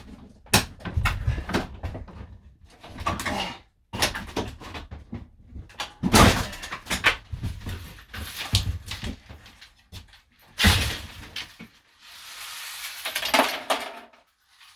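Irregular knocks, clatters and rattles of interior fittings and wiring being worked loose by hand, with a longer scrape near the end.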